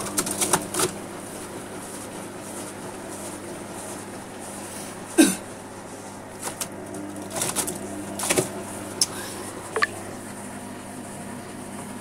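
Indesit front-loading washing machine tumbling a towel in its drum: a steady motor hum with irregular knocks and thuds, the loudest about five seconds in.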